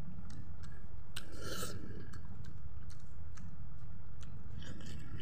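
Close-miked chewing and wet mouth smacks of a man eating rice and chicken curry by hand, with small clicks scattered throughout. A louder smack comes about a second and a half in and another near the end, over a steady low rumble.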